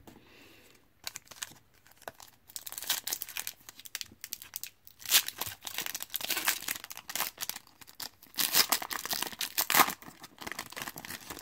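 Foil wrapper of a 2018 Panini Certified football card pack being torn open and crinkled by hand: a dense crackling that comes and goes, loudest in several spells in the second half.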